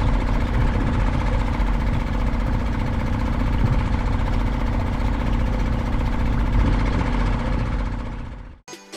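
A motor running steadily, then cutting off suddenly shortly before the end, after which music begins.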